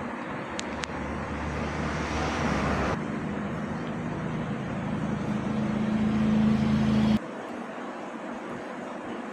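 A vehicle engine running over steady background noise, its low hum rising in pitch and getting louder, then cutting off abruptly about seven seconds in.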